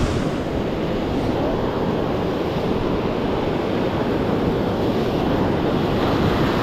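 Ocean surf washing over and between the boulders of a rock jetty: a steady rushing of breaking waves and foaming water.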